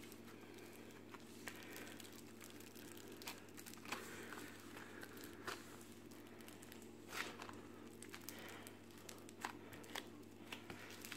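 Faint crackling and crinkling of foam bead clay full of tiny polystyrene beads as it is stretched, squeezed and pressed by hand, with scattered soft clicks over a low steady hum.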